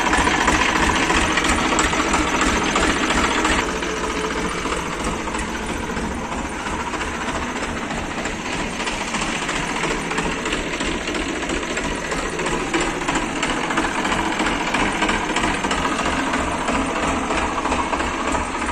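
TAFE Massey Ferguson 7250 DI tractor's three-cylinder direct-injection diesel engine idling steadily. It is louder at first, then a little quieter from about four seconds in.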